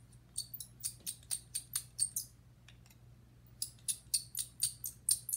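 Quick, light plastic clicks as the small ribbon-cable cover on a DJI Phantom 4 gimbal is picked and pried at by hand. They come in two runs of about four or five clicks a second, with a pause of over a second between them.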